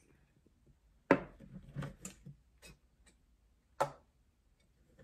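Clicks and light knocks of small glass roll-on bottles and a plastic oil bottle being handled and set down on a tabletop. A sharp click comes about a second in, a few lighter taps follow, and another sharp click comes near four seconds.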